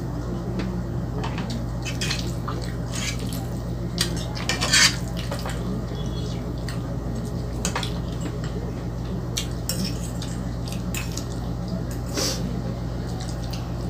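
Metal fork clinking and scraping against a nonstick frying pan while twirling creamy spaghetti, mixed with wet chewing mouth sounds. Several sharp clinks come at irregular moments, the loudest about five seconds in, over a steady low hum.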